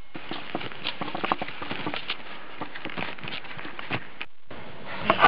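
Skis and poles crunching and scraping in firm snow in irregular steps as skiers step up a slope, with a brief dropout near the end.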